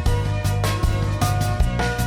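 Background music with a steady beat: regular drum hits over a sustained bass line and held pitched notes.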